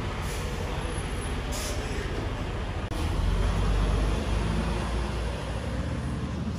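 City street traffic noise: a steady rush with a low rumble that swells in the middle, as of a heavy vehicle passing, and a brief hiss about a second and a half in.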